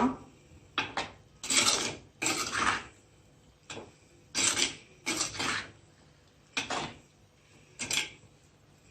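A spoon scraping and stirring thick aviyal (vegetables in coconut paste) around a cooking pot, in about eight short strokes with pauses between them.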